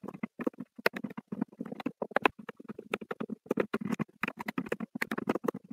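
Computer keyboard keys being typed on in rapid, irregular clicks as code is entered.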